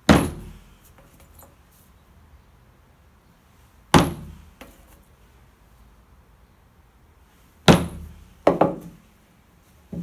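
Hammer driving layout nails into a wooden workbench to pin down a paper pattern: separate sharp knocks a few seconds apart, the last two close together near the end.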